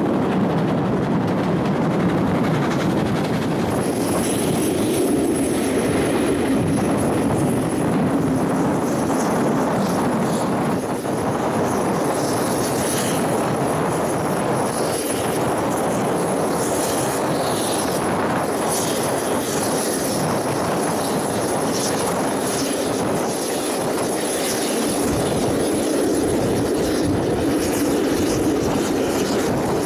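Steam-hauled passenger train running at speed, heard from an open carriage window: a steady rush of wind and wheel-and-rail noise. A thin, steady high-pitched tone comes in about four seconds in, with light high ticks later on.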